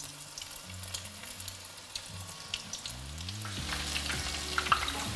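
Batter-coated soya chunks dropped one by one into hot oil for deep frying, the oil sizzling and crackling. It grows louder about three and a half seconds in as more pieces go in.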